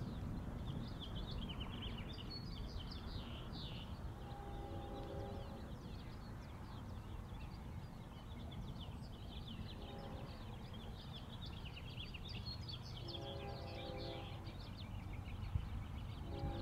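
Birds chirping steadily over a low wind rumble, while a distant approaching locomotive's air horn sounds a multi-tone chord several times in long and short blasts.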